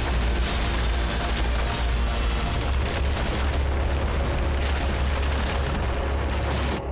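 Cartoon action sound effects: a sustained deep rumble of an explosion, with rocks and debris crashing over it. It cuts off abruptly just before the end.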